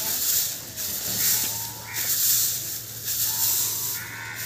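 Male Indian peafowl shaking its fanned train during the courtship display: a dry, hissing rustle of the feathers that comes in repeated bursts, about one or two a second.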